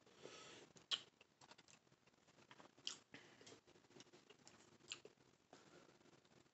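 Faint close-up mouth sounds of eating: biting and sucking at a half golden kiwi, then chewing, with sharp wet clicks about one, three and five seconds in.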